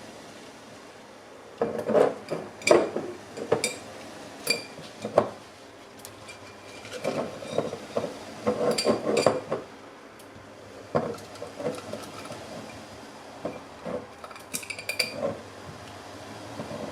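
A 1-litre glass jar being packed with cucumbers and other pickling ingredients: irregular knocks and clinks against the glass, some with a short ringing tone.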